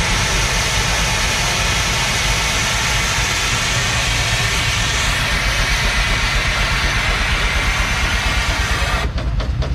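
Loud, steady running machinery: a constant hiss over a low rumble, turning rougher and choppier about nine seconds in.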